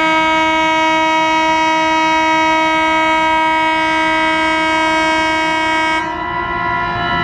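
Air horn of a WDM-3A diesel locomotive blowing one long, steady blast. About six seconds in its sound turns duller as the higher notes drop away, and the horn carries on.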